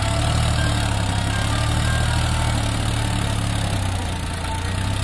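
Farmtrac tractor's diesel engine running steadily with a low hum, slightly stronger for the first few seconds, as the tractor pulls a sand-laden land leveller.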